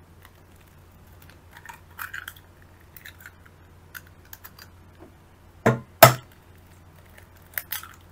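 An egg knocked twice against the rim of a stainless steel mixing bowl to crack it, two sharp knocks about half a second apart about two-thirds of the way in, followed by small clicks of the shell being broken open; light handling rustles before.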